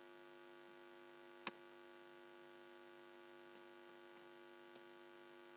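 Near silence, with a steady electrical hum throughout. One sharp click comes about a second and a half in, and a couple of much fainter ticks follow later.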